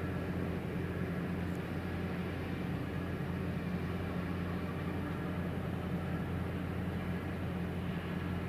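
A ship's diesel engine running steadily, a low even drone with a light hiss over it.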